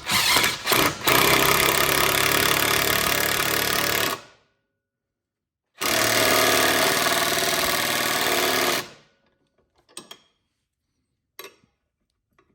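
Impact wrench with a 14mm deep socket hammering a lock nut tight on the sway bar link bolt. After a few short bursts it runs in two long stretches, about four seconds and then about three, with a pause between them.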